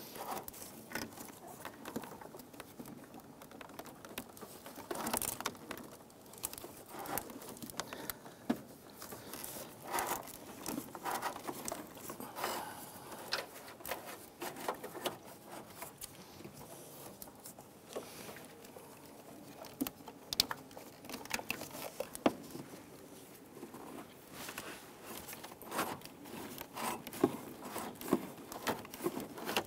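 Irregular rustling, scraping and light clicks as a hood release cable is pushed and fed through the firewall and among the engine-bay hoses and wiring by hand.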